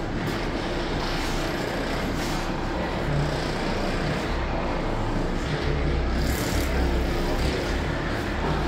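Handheld percussion massage guns running against patients' backs: a steady motor buzz with a low rumble, a little stronger in the second half.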